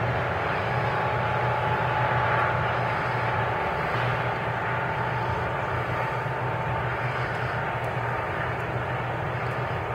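MARC diesel commuter train pulling away on the rails: a steady low rumble of locomotive and wheels with a faint high whine, slowly fading as it recedes.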